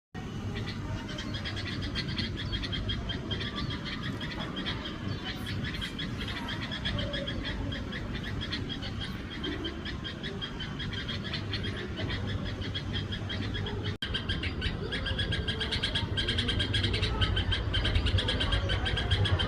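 Small birds chirping in a dense, continuous chatter of rapid overlapping calls, with a low steady hum underneath that grows louder near the end.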